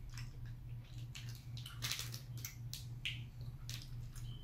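Plastic snack wrapper crinkling and clicking in the hands in short, irregular bursts, over a steady low electrical hum.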